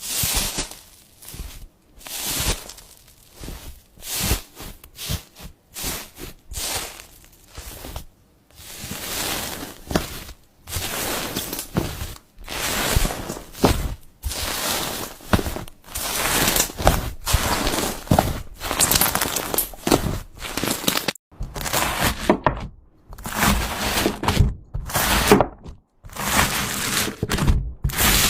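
Slime being handled by hand: an irregular run of short crackles, clicks and presses with brief gaps between them.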